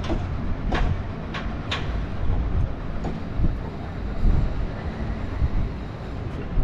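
Train running: a steady low rumble with four sharp clicks in the first two seconds.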